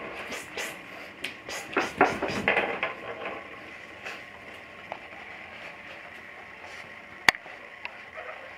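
English bulldog puppies scuffling on a fabric dog bed and bare floor: a run of short rustles and scrapes over the first three seconds or so, then quieter, with one sharp click about seven seconds in.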